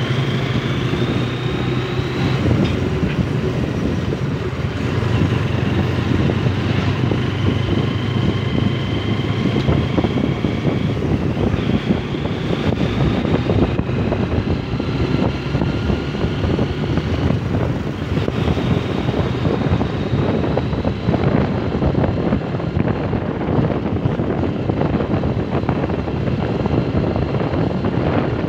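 Motorcycle engine running under way, with wind buffeting the microphone. A faint whine rises in pitch several times as the bike gathers speed.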